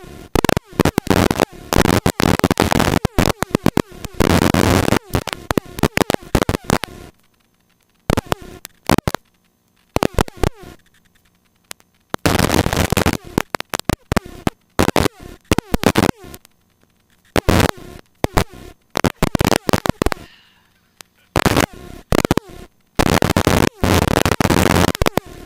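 Helicopter cabin noise, harsh and broad, cutting in and out in ragged bursts with abrupt dead silences of a second or more midway.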